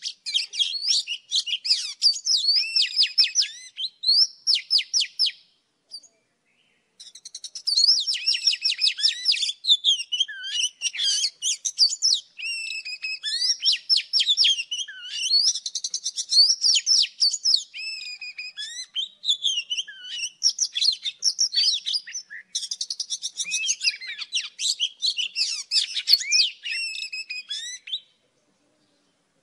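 Oriental magpie-robin song from a female and a young bird: a fast, varied stream of whistles, chattering notes and sliding phrases. It breaks briefly about six seconds in and stops about a second before the end.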